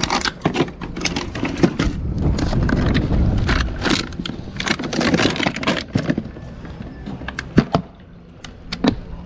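A fish being packed into a plastic cooler: a frozen water jug and plastic bottles shifting and rattling under handling, then the lid shut and latch clicks near the end.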